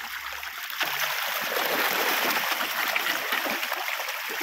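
A packed shoal of carp thrashing and slurping at the surface as they feed, making a dense, continuous splashing that grows louder about a second in.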